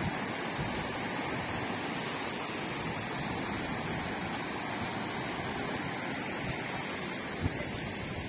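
Fast mountain river running in white-water rapids, a steady rushing. A brief knock sounds near the end.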